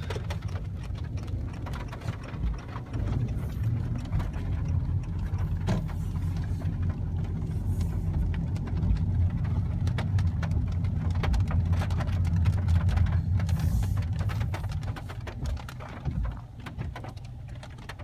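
Car engine and road rumble heard from inside the cabin while driving, swelling through the middle and easing off near the end, with scattered light ticks.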